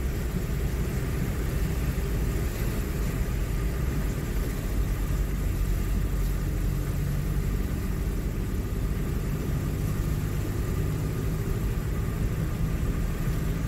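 A vehicle engine running steadily, heard from inside the cab, as it drives through deep flood water pushing a bow wave, with the wash of water at the front.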